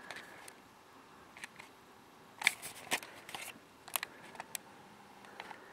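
Faint scattered clicks and taps, several of them bunched together near the middle, over quiet room tone.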